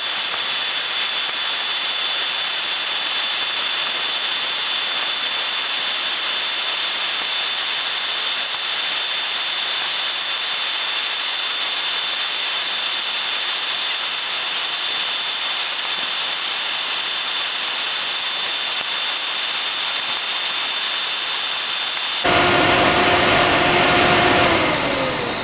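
Jeep Cherokee XJ's electric radiator cooling fan running, heard sped up as a loud, steady high hiss with a thin whistle. About 22 s in it drops back to normal speed as a steady hum, and near the end the hum's pitch falls as the fan cuts off and spins down. The time-delay relay has timed out after keeping the fan on for just under four minutes.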